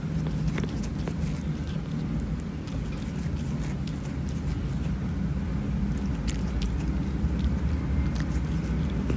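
Kitten purring steadily close to the microphone while licking and nibbling its paw: a continuous low rumble with irregular small wet clicks of tongue and teeth.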